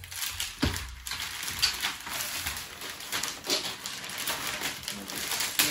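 Paper booklets and packaging rustling and crinkling as they are handled, with a few soft thumps near the start.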